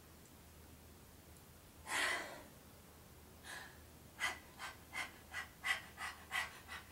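A woman imitating a dog with her breath: one sharp, loud gasp about two seconds in, then quick rhythmic dog-like panting, about three breaths a second.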